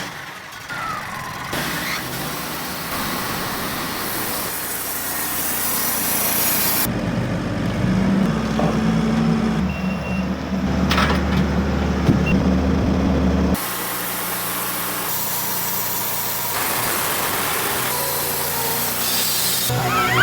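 A sawmill running and cutting through a large Japanese maple log: steady engine and blade noise that changes abruptly several times, with a deeper, humming stretch in the middle.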